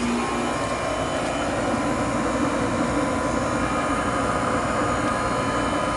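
Home heating equipment running steadily: a constant rush of moving air with a faint steady hum through it.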